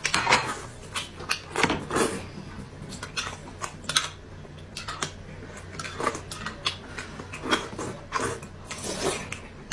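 Close-up eating sounds: noodles slurped from a bowl and food being chewed, with irregular light clinks of a spoon and chopsticks against glass bowls.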